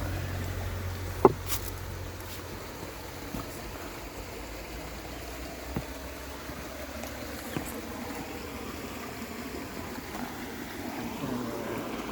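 Creek water running steadily over a low waterfall, with a few sharp snaps, the loudest about a second in.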